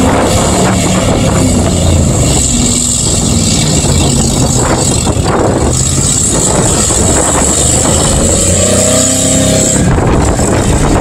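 Pickup truck engine running hard under load as the truck pushes through a mud bog pit, its revs climbing near the end.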